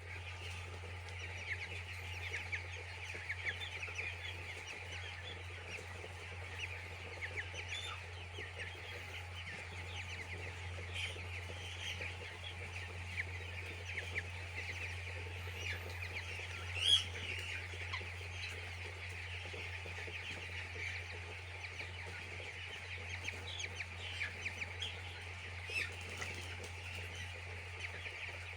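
A flock of young chicks peeping all at once, a dense chorus of short high chirps, with one louder chirp about seventeen seconds in, over a steady low hum.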